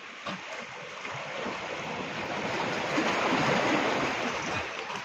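Sea wave surging against shoreline rocks: a rush of water that swells to a peak about three seconds in, then ebbs away.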